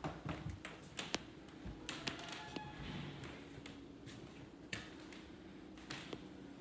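Light footsteps tapping and clicking on a hardwood floor while walking, with irregular sharp taps that thin out in the second half.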